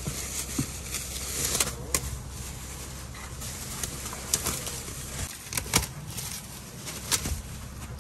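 Clear plastic protective film crinkling and rustling as it is pulled off car seats, with scattered sharp crackles of the stiff plastic.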